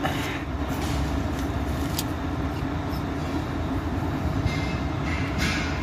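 Steady low mechanical rumble of machinery running, with a few light clicks, one about two seconds in and more near the end.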